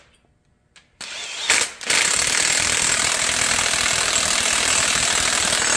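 Cordless impact wrench hammering steadily as it runs down the bolts holding an engine stand's mounting plate to the engine block, starting about two seconds in after a moment of near silence.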